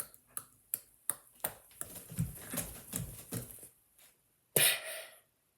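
A person making a novelty mouth noise: a run of sharp clicks, about three a second, that grow louder and fuller about two seconds in, then one short loud blast near the end.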